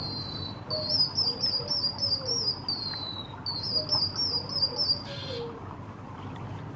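White-headed munia (emprit kaji) singing a canary-like song: high whistled notes and fast warbling trills in several phrases, stopping about five seconds in. A short rushing hiss follows.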